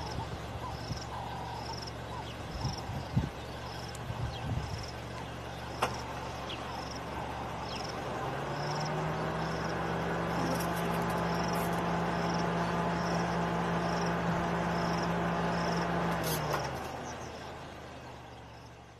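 Vehicle engine running steadily, joined by a stronger steady drone from about halfway that fades away near the end. Through it an insect chirps in a steady rhythm, about three chirps every two seconds, and a few light clicks come in the first seconds.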